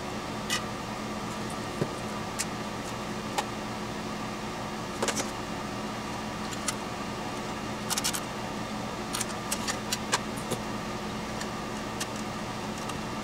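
Scattered light metallic clicks and taps as small parts and hardware are handled and fitted on an amplifier's aluminium chassis, about a dozen, some in quick clusters, over a steady background hum.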